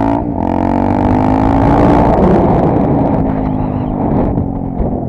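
Honda Tornado 250's single-cylinder four-stroke engine pulling under way, with a brief break in the engine note just after the start before the revs settle into a steady run. Wind rushes over the microphone.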